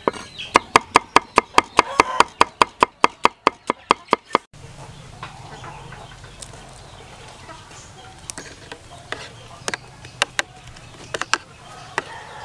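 Kitchen knife chopping shallots on a wooden cutting board, about five quick chops a second, stopping about four and a half seconds in. Then a metal spoon stirring beaten egg in a bowl, with scattered light clinks over a low steady hum.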